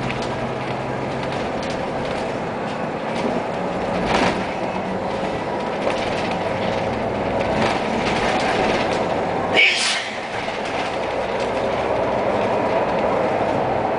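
A vehicle driving along a city street, heard on board: steady engine and road noise with some rattling. There is a click about four seconds in and a brief high-pitched squeak or hiss a little under ten seconds in.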